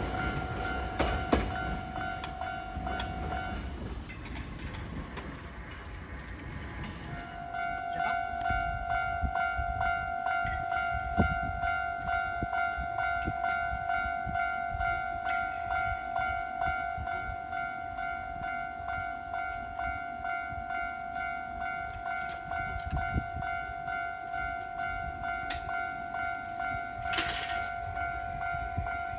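Japanese level-crossing warning bell ringing in a steady run of repeated electronic dings. It stops a few seconds in and starts again about seven seconds in. Train rumble runs underneath, and a short hiss comes near the end.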